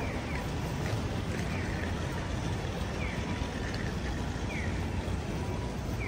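Busy city street ambience on a wet winter day: a steady low rumble of traffic and city noise, with a faint short falling chirp repeating about every second and a half.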